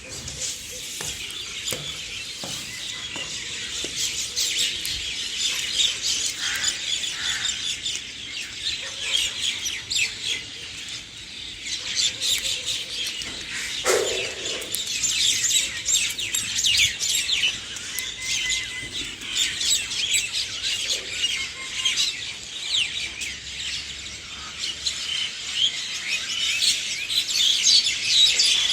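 A chorus of many songbirds chirping and calling over one another: a dense, continuous stream of short, high chirps, with one lower call about halfway through.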